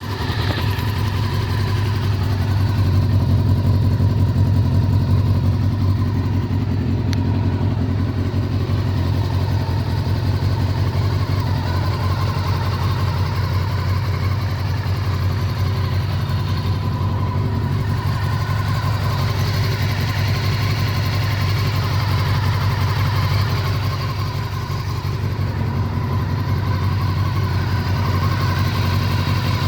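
Honda CBR400RR NC23's inline-four engine idling steadily on freshly rebuilt carburettors.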